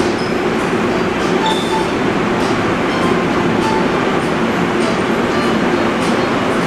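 Atlanta airport Plane Train people mover running between stations, heard from inside the car: a steady, loud rumble.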